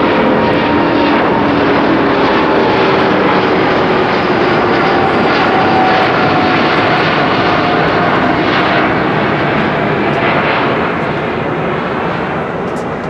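Airbus A350-900 airliner's Rolls-Royce Trent XWB turbofans at takeoff thrust as it climbs out overhead: a loud, dense jet noise with whining tones that slide slowly down in pitch as it passes, beginning to fade near the end.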